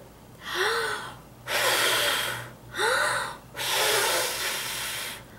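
A woman blowing hard through pursed lips, miming blowing up a big bubble-gum bubble: four strong puffs of breath one after another, each starting with a short voiced sound.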